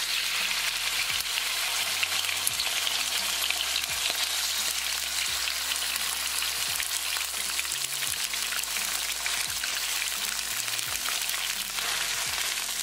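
Thin slices of raw chicken breast sizzling and crackling steadily in hot vegetable oil in a wok as they are added.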